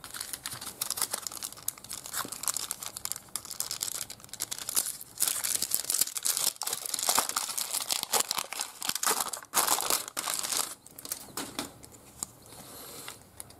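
Foil trading-card pack wrapper crinkling and tearing as it is opened by hand, in dense, irregular crackles.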